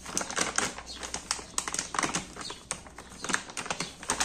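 Irregular clicks and light knocks of kitchen containers and utensils being handled, several a second, while flour is set out for roti dough.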